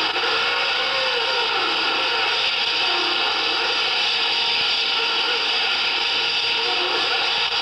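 Noise-music soundtrack: a dense, steady grinding wash of noise with faint wavering tones beneath it, holding one level throughout.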